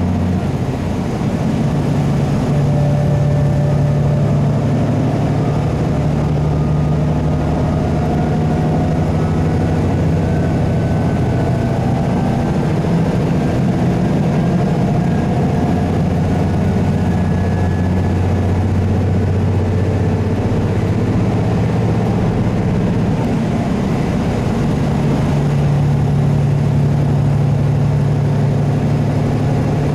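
Running sound of a KiHa 75 diesel railcar heard inside the passenger cabin: its Cummins diesel engine drones steadily under way, the engine note stepping up and down a few times.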